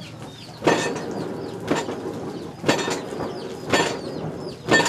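Blacksmith's hammer striking metal at the forge, one ringing blow about every second. Small birds chirp throughout.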